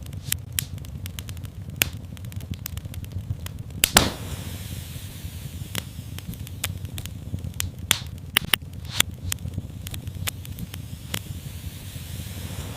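Wood fire crackling in a fireplace: a steady low rumble of the flames with frequent sharp pops and snaps, the loudest pop about 4 seconds in followed by a short hiss.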